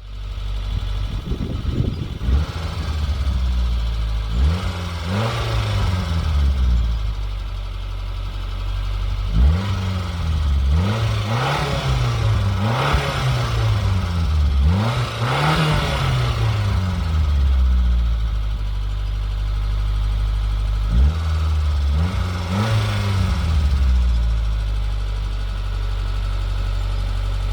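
Nissan Micra K10's stock-exhaust 1.2 l MA12S carburetted four-cylinder petrol engine idling and being revved in a series of short throttle blips, each rising and falling back to idle. It settles to a steady idle near the end.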